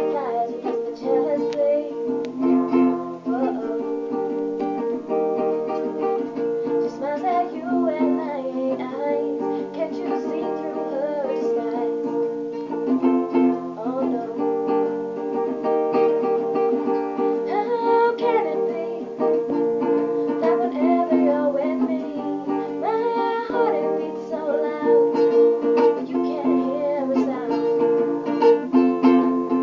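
A woman singing a song, accompanied by a plucked acoustic stringed instrument, most like a ukulele, playing steady chords.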